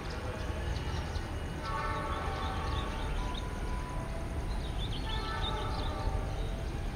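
Diesel locomotive approaching with a steady low engine rumble, sounding its horn in two long blasts: about a second and a half in, and again around five seconds in.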